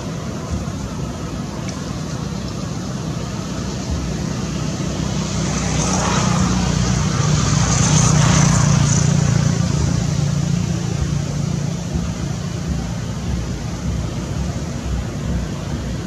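Steady engine noise of passing motor traffic, swelling to its loudest about halfway through and then easing back.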